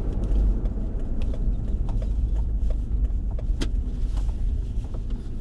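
Car driving along a rough rural road, heard inside the cabin: a steady low rumble of road and engine noise with scattered small clicks and knocks, one sharper click about three and a half seconds in.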